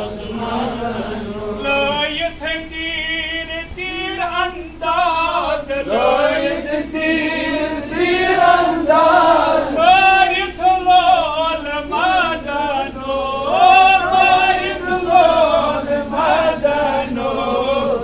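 A man chanting a Sufi devotional poem (kalam) in a melodic recitation with no instruments, in phrases of long, wavering held notes.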